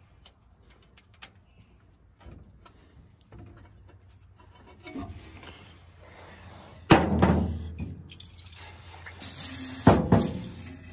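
Hands working around an old flathead V8 engine bay: light clicks, then a sharp metallic knock about seven seconds in and another near the end. Just before the second knock comes a brief hiss of an aerosol can spraying penetrating oil into a spark-plug hole.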